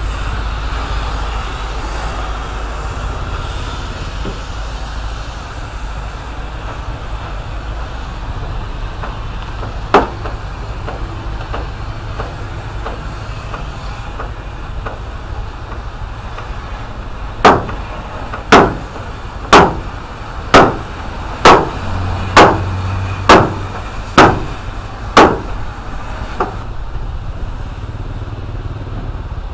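Motorcycle engine running steadily with a low rumble. One sharp metal bang about a third of the way in, then a run of nine loud, ringing hammer blows on steel, about one a second, that stop near the end.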